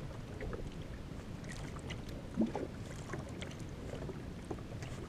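Steady wind and water noise around a jet ski at sea, with scattered light ticks and one short thump about two and a half seconds in.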